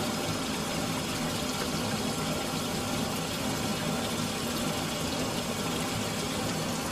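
Water running steadily from a bathroom sink tap.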